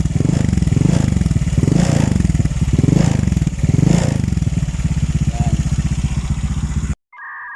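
Honda Click 150 scooter's single-cylinder four-stroke engine running through a Replica Pro ratlook aftermarket exhaust, revved in about four short swells, with a rattle from the loose tire hugger. About seven seconds in it cuts off suddenly and steady electronic tones and beeps follow.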